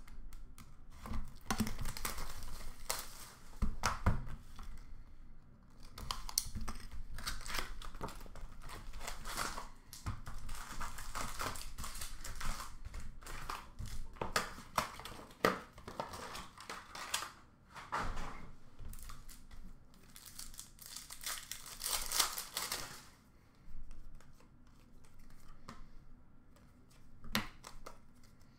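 Upper Deck hockey card packs being torn open by hand: wrappers ripping and crinkling in irregular bursts, with clicks and rustles as the cards are handled, and a few short lulls.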